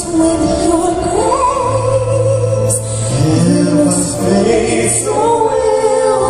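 A woman and a man singing a slow ballad duet with instrumental accompaniment, heard over an arena sound system.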